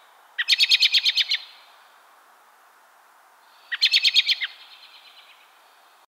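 American robin giving its whinny call twice. The first is a quick run of about ten sharp, high notes, and the second, shorter run comes about three seconds later.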